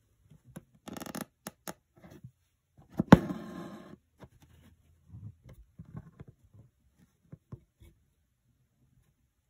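Rustling and scratching of fingers on taut embroidery fabric in a hoop, with a sharp tap about three seconds in as the needle comes up through the cloth, followed by about a second of rasping as the thread is drawn through. Light rustles follow as the thread is wrapped around the needle for a French knot.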